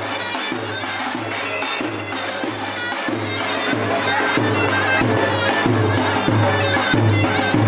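Davul and zurna playing a folk dance tune: a shrill, reedy zurna melody over steady bass drum beats, about one and a half a second, growing louder toward the end.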